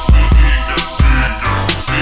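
Old-school Miami bass style hip hop track playing without vocals: a drum-machine beat with deep bass kicks about twice a second and sharp snare and hi-hat hits.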